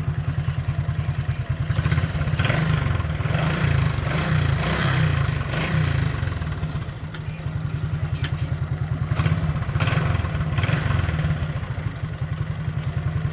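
Honda XRM125's single-cylinder four-stroke engine running at idle with an even, rapid beat. It picks up in revs twice, about two seconds in and again past the middle.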